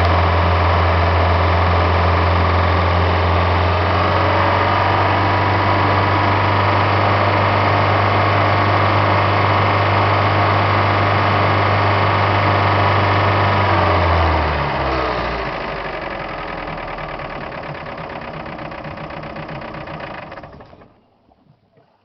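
Mercruiser 3.0 GM four-cylinder sterndrive engine idling with a knocking sound that the owner traced to the timing gear cover area and was told is normal at idle. About two-thirds of the way through the sound drops and slows down, a quieter sound runs on, and it cuts off near the end.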